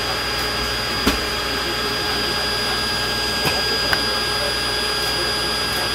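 Steady machine whine and rushing noise heard inside an Ilyushin Il-18 cabin on the ground, with several high steady tones in it. A few light clicks come about a second in and again around three and a half to four seconds.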